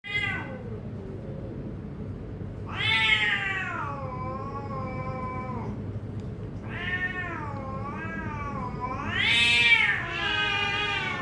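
Two cats yowling at each other in a standoff before a fight: long, wavering wails of several seconds each, the loudest near the end.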